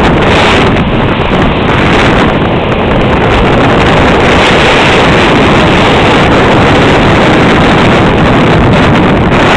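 Loud, steady wind buffeting the microphone, with a heavy low rumble, over surf breaking and washing up the beach.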